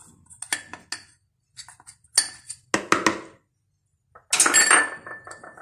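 Metal spoon clinking and scraping against a small glass bowl as cornflour is tipped out of it: a few separate light knocks with short ringing, then a longer scrape about four seconds in.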